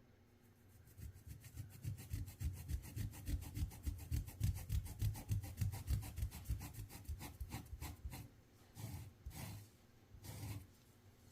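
A stiff brush scrubbing a travertine tile floor by hand, in fast, even back-and-forth strokes of about five or six a second, then three slower, longer strokes near the end.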